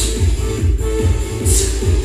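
Electronic dance music with a steady bass beat and a hissing cymbal hit at the start and again about a second and a half in.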